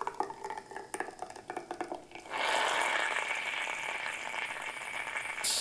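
Handpresso hand-pumped espresso maker releasing its shot: a few drips and small clicks, then about two seconds in a steady sputtering hiss as the coffee streams out under pressure into the glass.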